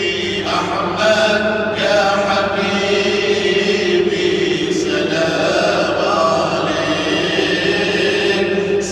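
A group of voices chanting an Islamic devotional chant together, continuous and melodic, with long held notes that shift in pitch.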